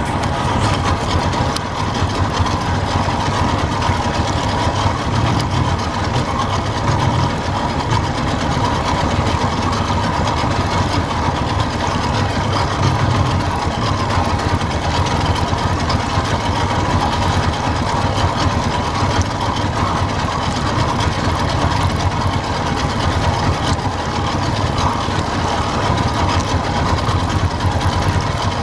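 Boat motor running steadily while trolling.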